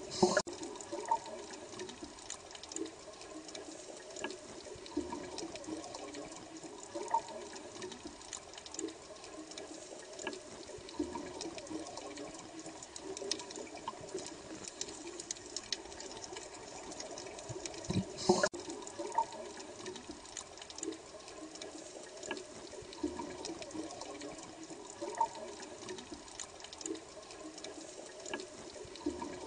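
Aquarium water bubbling steadily, with many small bubble pops and two louder bursts, one just after the start and one about two-thirds of the way through.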